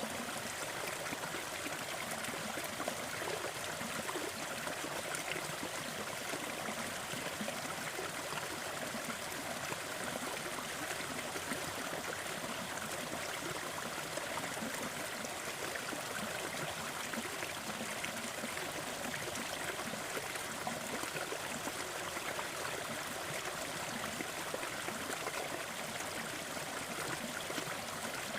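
Small waterfall splashing and trickling steadily into a forest stream.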